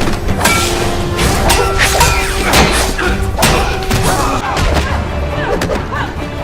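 Fight-scene soundtrack: dramatic score music with a rapid series of punches, thuds and crashes on top.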